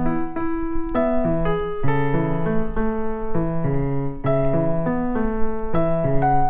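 Background music: a piano or electric-piano melody, notes changing in a gentle repeating pattern.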